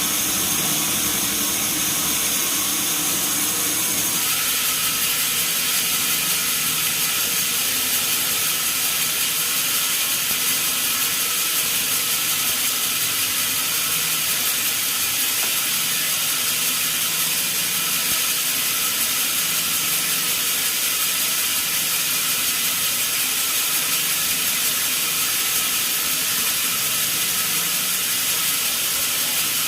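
Sawmill saw machinery running steadily without a break; the sound shifts about four seconds in, then holds steady.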